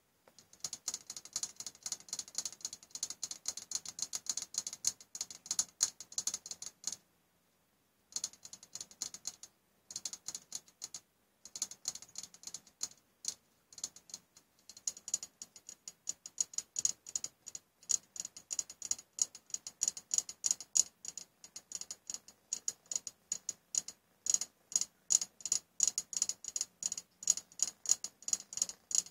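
Rapid, irregular clicking, several clicks a second, in runs broken by short pauses about seven, ten and eleven seconds in.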